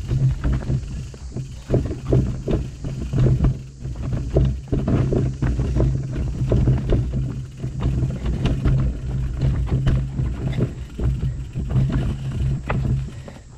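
Mountain bike riding over a rocky trail: tyres rolling on stone and dirt, with frequent irregular knocks and rattles from the bike as it hits the rocks, over a steady low rumble.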